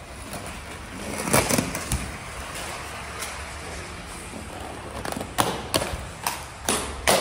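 Skate wheels rolling over pavement with a steady rumbling hiss, broken by a series of sharp clacks, two about a second and a half in and several more close together after five seconds.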